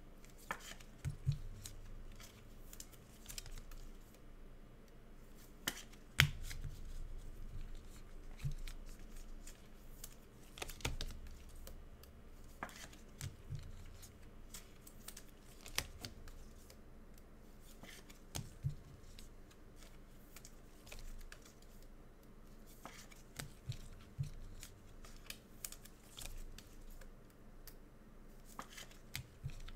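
Trading card packs and wrappers being handled and opened: irregular snips, tearing and crinkling of wrappers, with scattered sharp clicks and a few dull thumps on the table, the loudest about six seconds in.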